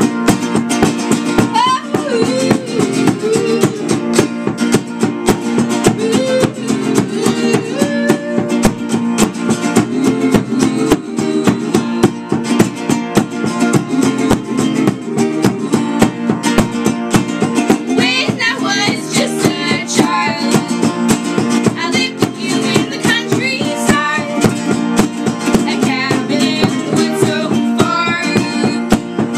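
Two acoustic guitars strummed in a steady rhythm, with two women singing over them, the voices clearest in the second half.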